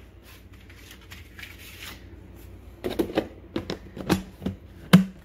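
Plastic lid being pressed onto a plastic food container: soft handling rustle, then from about three seconds in a run of sharp clicks as the lid's edges snap shut, the loudest near the end.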